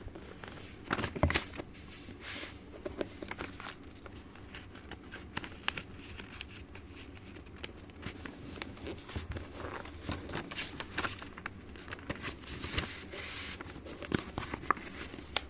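Sheet of origami paper being handled and folded, with scattered soft crackles, taps and rustles as its corners are folded in and creased; the loudest cluster comes about a second in.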